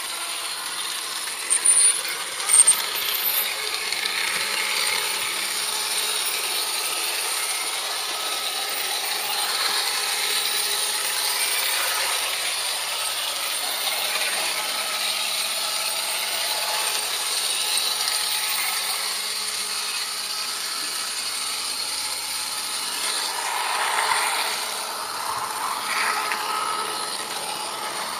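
HO-scale model train running along its track, heard from on board: a steady clattering rattle of small wheels on rails and motor gearing, with two sharp clicks about two seconds in.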